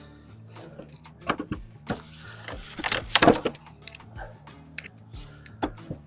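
Irregular metallic clanks and knocks of tools working at a nailed fence post, the loudest cluster about three seconds in.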